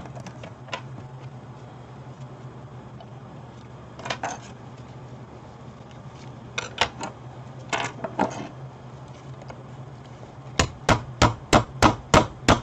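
Sharp taps and knocks on an LED grow-light panel as a burnt-out LED is worked loose for removal: a few scattered clicks, then a quick run of about eight taps near the end. A low steady hum runs underneath.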